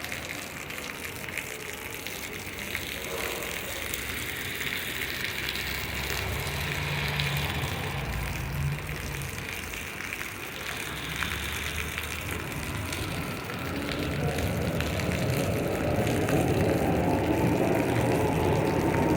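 Steady rain falling and splashing, with a vehicle's engine growing louder and rising in pitch over the last few seconds as it approaches.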